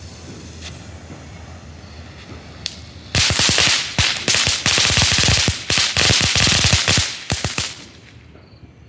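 Dragon Fire novelty fountain firework going off. After a few seconds of quieter rushing, it breaks into loud, dense crackling from about three seconds in, lasts about five seconds and stops near the end.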